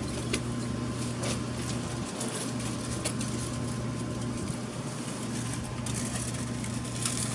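Car engine idling, heard from inside the cabin as a steady low hum, with a few faint clicks and rustles.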